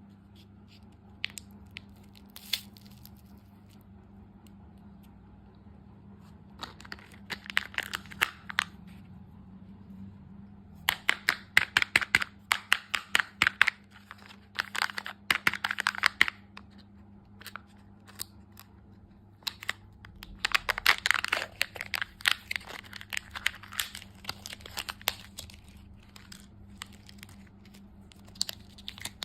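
Close-up crinkling and crackling from candy being handled and eaten, in three bursts of rapid sharp snaps: a short one about seven seconds in, a long one from about eleven to sixteen seconds, and another from about twenty to twenty-three seconds. A faint steady low hum runs underneath.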